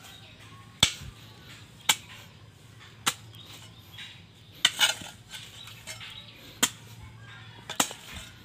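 A cangkul (hoe) chopping into dry, stony soil to dig a shallow hole: a series of sharp strikes, roughly one a second, with a quick double strike near the middle and another near the end.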